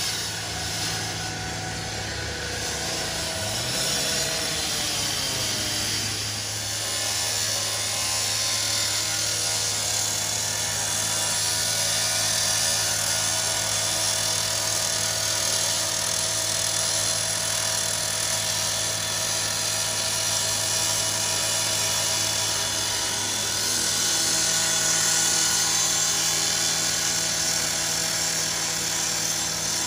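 Gas-powered rotary saw cutting through the steel side of a garbage truck's compactor body: a steady, high-pitched grinding of the blade on sheet metal over the engine's steady drone, with a few falling pitch changes in the first seconds as the saw is worked into the cut.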